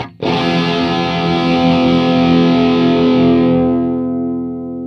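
Electric guitar through an engaged Tone City Golden Plexi overdrive pedal: a short break, then a distorted chord struck and left to ring, its brightness dying away over about four seconds.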